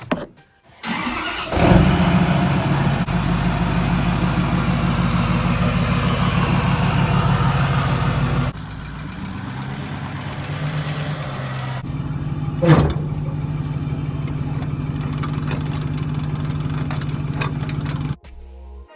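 A diesel engine cranks and starts about a second in, then runs steadily at idle; its level drops and the note shifts partway through, a single sharp clunk sounds a little after the middle, and the sound cuts off suddenly near the end.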